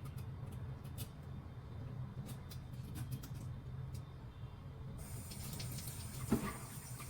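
Faint scattered clicks with one sharper knock about six seconds in, over a steady low hum: utensils and ingredients being handled during kitchen prep.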